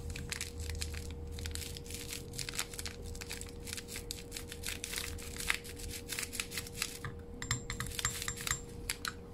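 A torn powder sachet crinkling as it is shaken and tapped, pouring powder onto a metal spoon over a mortar: a dense run of small crackles and ticks that thins out about seven seconds in.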